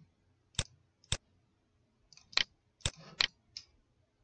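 Computer keyboard keys clicking one at a time, about half a dozen sharp keystrokes at uneven spacing as a terminal command is entered, with a fuller key press right at the end.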